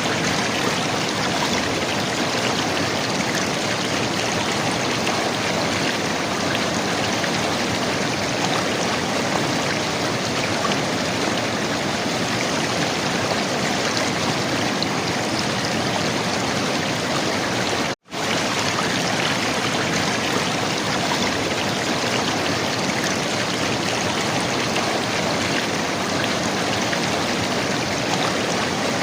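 River water flowing and gurgling: a steady rushing noise that cuts out for an instant once, about two-thirds of the way through.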